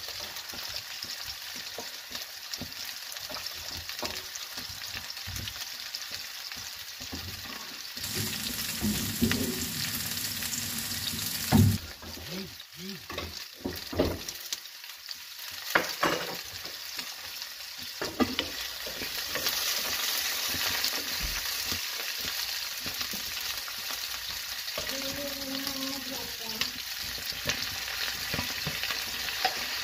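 Sliced onion, carrot and bell pepper sizzling in a nonstick frying pan, a steady hiss. A little before the middle a wooden spatula knocks and scrapes against the pan as the vegetables are stirred, with one sharp knock the loudest sound; after that the sizzle is louder.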